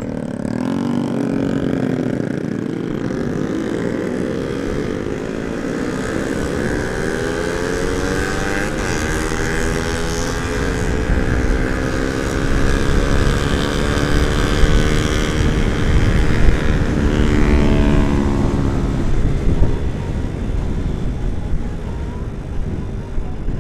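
Sport motorcycle engine heard from the rider's seat, pulling away and climbing slowly in pitch for about twelve seconds, holding at speed, then easing off and fading near the end. Wind rumbles over the microphone throughout, loudest in the middle.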